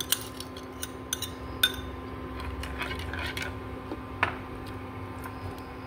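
A few light clinks of a kitchen utensil and a small glass dish against a nonstick pan of sauce, the sharpest about one and a half seconds and four seconds in, over a steady faint hum.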